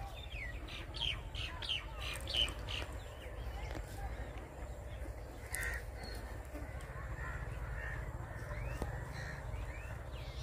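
Birds calling: a quick series of short, falling chirps through the first three seconds, then scattered calls, over a low steady rumble.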